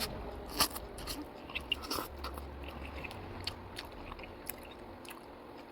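A person chewing and eating soft rice noodles, with scattered short clicks and taps, the loudest about half a second in.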